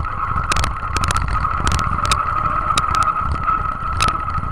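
Modified pulling tractor's engine running, heard from a camera mounted on the tractor, with a steady high whine over the low engine rumble. Scattered clicks and knocks from the ride over the dirt.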